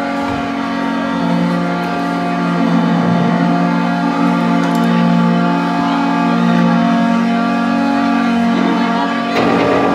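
Live rock band on electric guitars and keyboard holding long, sustained chords with no drum beat; a new low note comes in about a second in.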